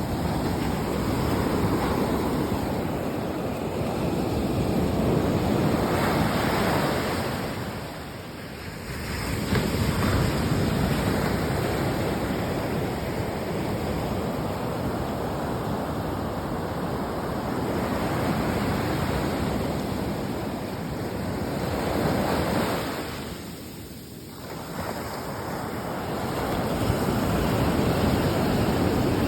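Sea waves washing in and breaking on the shore. The surf swells and eases, dropping away briefly about 8 seconds in and again about 24 seconds in before the next wave comes in.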